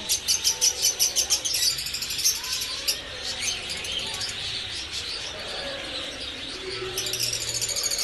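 Small birds chirping in quick, high-pitched runs. The chirping is busiest over the first two seconds or so, thins out, and picks up again near the end.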